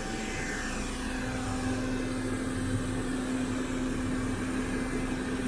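Roborock E4 robot vacuum cleaner running, its suction motor giving a steady drone.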